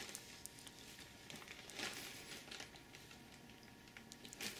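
Shrink-wrapped cardboard model kit box being turned over in the hands: faint crinkling of the plastic wrap and soft taps and rubs against the box, with a louder rustle about two seconds in and another near the end.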